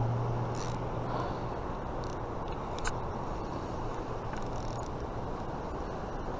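Rushing river water below a bridge, with the low hum of a passing vehicle fading out after about five seconds. A few light clicks come from a spinning reel being cranked as a hooked trout is reeled up.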